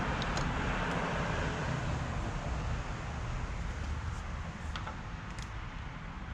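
Steady background rumble and hiss, with a few faint clicks as the plastic crossbar dent puller is handled and lifted off the car's roof panel.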